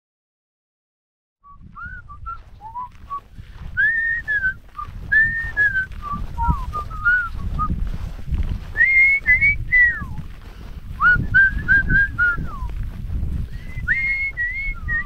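A man whistling a tune in short gliding phrases, starting about a second and a half in, with a low rumble of wind on the microphone underneath.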